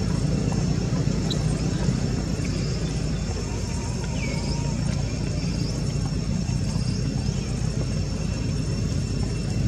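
Steady low rumble, like a distant engine or wind, with a faint high steady hum and a few short high chirps, one about a second in and one about four seconds in.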